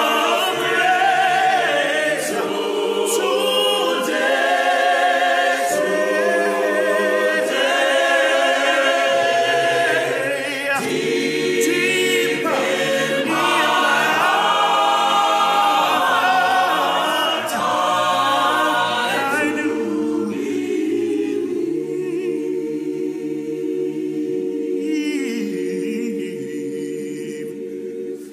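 A mixed choir of men and women singing a cappella, with a male lead voice at first. In the second half the choir holds a long chord that grows quieter towards the end.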